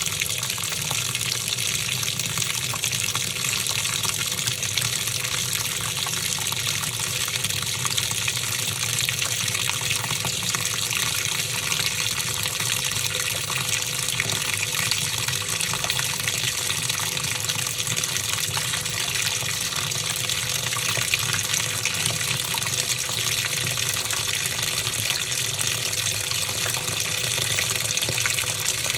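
Top-loading washing machine running, with a steady rush of water.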